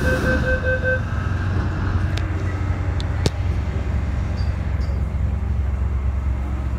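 MTR M-Train's door-closing warning beeping rapidly in two tones and stopping about a second in, followed by a few sharp clunks as the doors shut. A steady low rumble from the train's running equipment carries on underneath.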